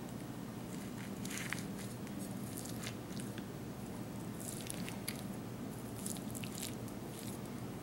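Metal spatula cutting through a crumbly baked pie crust in an aluminium foil pie pan: scattered crunches and scrapes, a few at a time, over a low steady hum.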